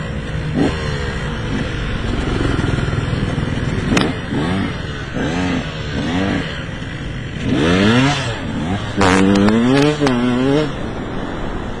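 Enduro motorcycle engines revving up and down as the bikes ride the dirt track, the pitch climbing and dropping again and again. About four seconds in there is a sharp click. From about eight seconds the engine note rises into a loud burst of revving that wavers before easing off.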